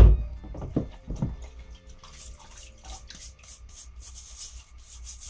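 Paint-stripped aluminium lamp parts being washed by hand in a plastic bowl of water: a knock at the start, water sloshing, then rapid scrubbing strokes from about two seconds in.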